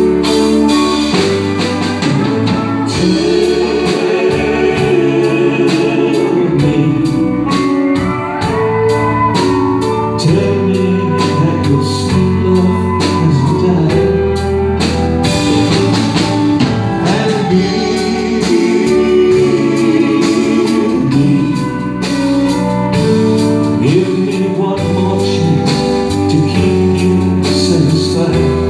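Live country band playing a slow ballad, with acoustic guitar and drum kit, in steady full sound with no pause.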